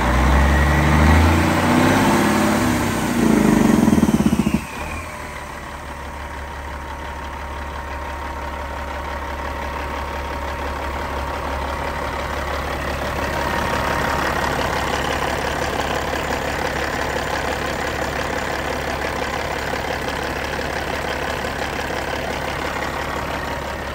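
Caterpillar 3406E inline-six turbo diesel running at raised speed, its pitch stepping up and down. About four and a half seconds in it drops abruptly to a steady idle.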